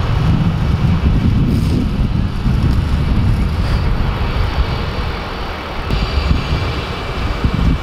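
Steady low rumble of wind buffeting the microphone outdoors, with vehicle engine noise underneath. The background changes abruptly about six seconds in.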